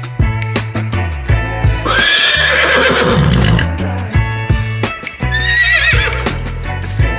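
Horse neighing twice: a long whinny that falls in pitch about two seconds in, and a shorter, wavering one near the end. Background music with a steady beat plays throughout.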